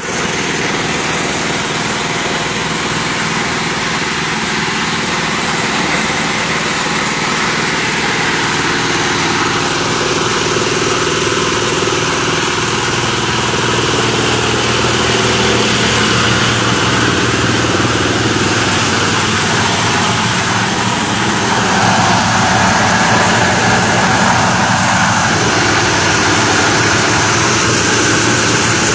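Plastic shredding machine running, a loud, steady mechanical din that grows a little louder about three-quarters of the way through.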